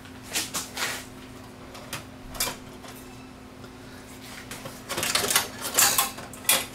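A few short metallic clicks and scrapes as a screw is worked out of a VCR's sheet-metal top cover. About five seconds in comes a longer run of metal clatter and scraping as the steel cover is lifted off the VCR chassis.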